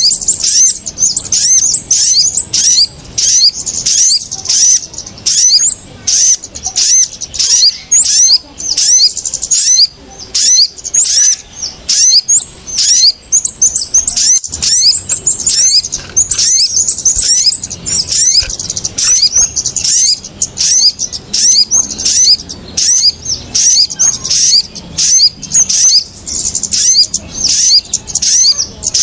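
Bird-trapping lure recording of small birds, kemade and sogok ontong (sunbird), calling in an agitated chorus: loud, high-pitched chirps repeated several times a second without a break.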